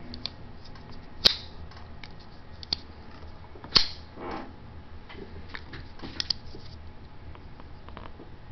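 Spring-assisted pocket knives being worked open and shut: a few sharp snaps as the blades fly out and lock, with smaller clicks of handling in between.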